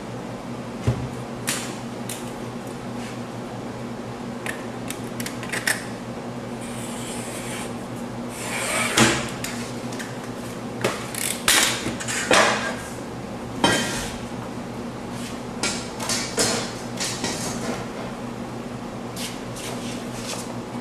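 Canvas stretching work: irregular sharp clicks and knocks of tools against the wooden stretcher frame, with rustling of the canvas being handled, over a steady low hum.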